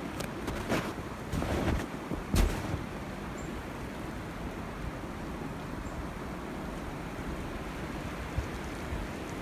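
Three footsteps in snow in the first two and a half seconds, over a steady hiss of wind noise on the microphone.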